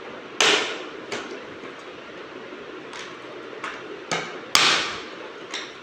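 A run of about seven sharp knocks and clacks of hard objects at irregular intervals, two of them much louder than the rest, about half a second in and near the end.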